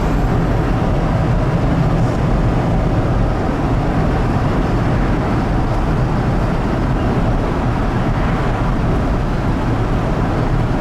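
A car driving along a road: steady engine and tyre noise with a constant low hum.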